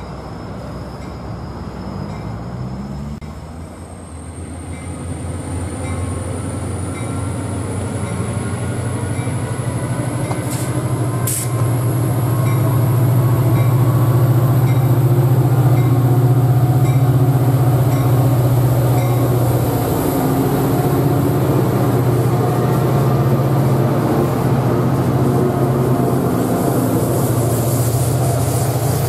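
Coaster commuter train led by an EMD F40PH diesel locomotive passing: the locomotive's diesel engine drones low and grows steadily louder as it approaches, loudest about halfway through as it goes by. The bilevel passenger cars then keep up a steady rumble on the rails.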